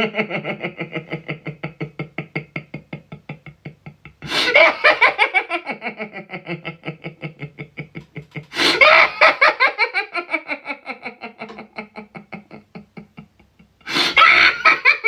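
A person's long run of staccato laughter, rapid 'ha-ha-ha' pulses about six a second. It comes in three long bouts, each starting high and sliding down in pitch, with a brief break between bouts.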